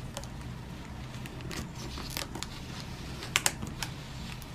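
Clear plastic blister packaging being worked open by hand: scattered light clicks and crackles of stiff plastic, with two sharper clicks about three and a half seconds in.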